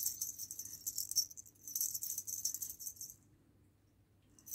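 A high, dry jingling rattle shaken in quick bursts that stops about three seconds in.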